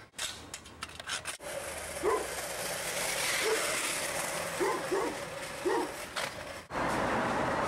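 Small wheels of a caster board rolling on concrete, a steady rolling noise with a few short squeaks. About a second before the end it cuts abruptly to a louder, steady rumble.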